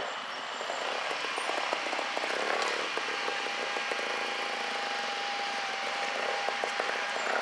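A trials motorcycle engine running at low revs, with irregular short ticks and pops over a steady rushing noise. A thin steady whine holds for a few seconds in the middle.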